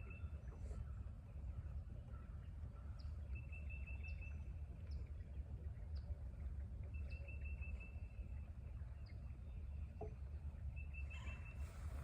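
Bird singing: a short, rapid run of high notes repeated about every four seconds, with single brief chirps in between, over a steady low rumble.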